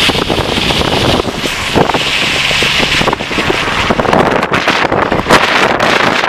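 Railway maintenance train running close by: loud, steady noise with scattered knocks and clanks, and wind buffeting the microphone.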